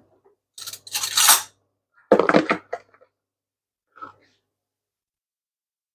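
Seasoning powder shaken out of a plastic jar in a few short, hissing bursts, the loudest near the start and a faint one about four seconds in.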